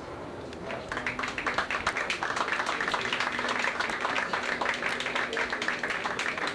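Crowd of spectators applauding, the clapping starting about a second in and keeping up steadily.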